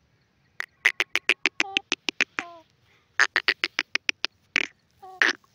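Grey francolin calling: quick runs of short, sharp notes, about six a second, broken by brief pauses.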